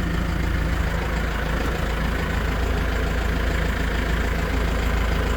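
Tractor engine idling steadily, a low even hum, with the air-conditioning running on a fresh refrigerant charge.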